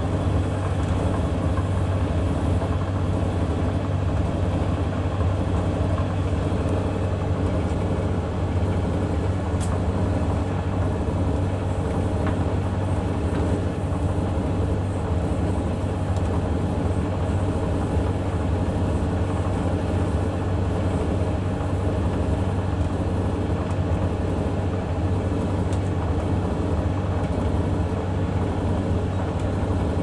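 A Samsung front-loading washing machine and a Hoover Vision Tech tumble dryer running side by side, making a steady low machine hum with the dryer's drum turning the laundry.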